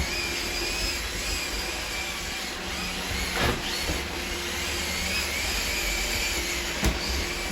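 Robot vacuum cleaner running with a steady whir of its motor and brushes, with two brief knocks, one about halfway through and one near the end.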